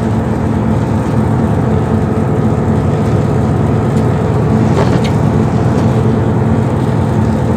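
Steady drone of a vehicle's engine and tyres on a wet road, heard from inside the cab while driving along the highway.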